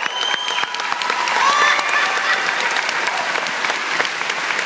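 Audience applauding, with a couple of high cheers in the first two seconds.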